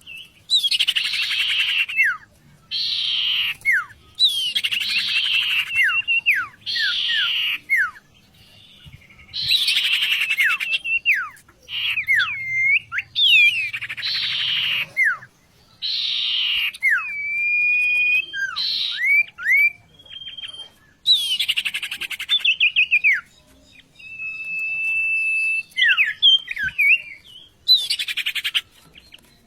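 Sirtu songbird singing a varied song: repeated harsh, rattling chatter phrases about a second long, alternating with clear sliding whistles and several held whistled notes.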